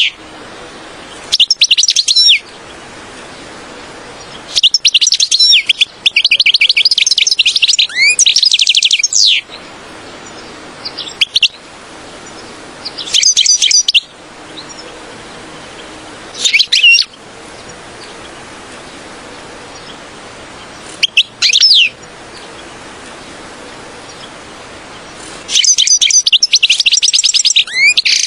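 European goldfinch singing in bursts of rapid, twittering high trills, about seven phrases separated by pauses of a few seconds, over a steady low hiss.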